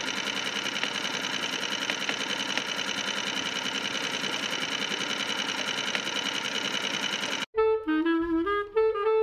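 Small dinghy outboard motor running steadily. About seven and a half seconds in it cuts off abruptly and saxophone-led swing music begins.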